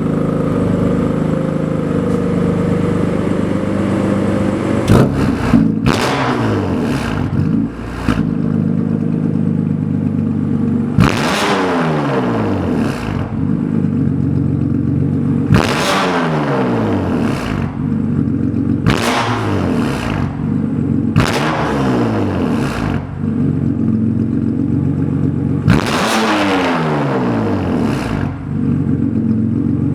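BMW S55 twin-turbo inline-six with an aftermarket exhaust, idling and revved in about six sharp blips, each climbing quickly and then dropping back to idle.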